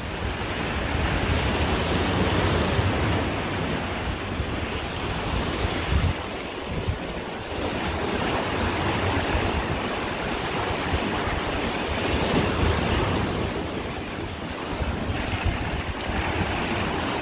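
Sea waves washing, with wind blowing across the microphone in an uneven low rumble.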